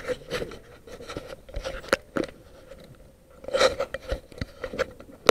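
Handling noise of a small action camera: rubbing and scraping with irregular knocks close to the microphone as the camera is moved about.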